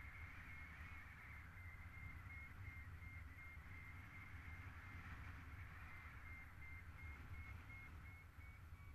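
Faint, muffled rumble of airflow on an action camera carried through the air by a flying paraglider, with a thin, steady high tone that wavers slightly in pitch.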